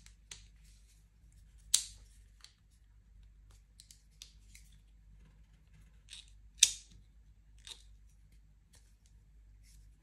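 Bosch multitool being handled and its file got out: a few scattered metal clicks and short scrapes. There is a sharp click about two seconds in, and the loudest one comes about six and a half seconds in.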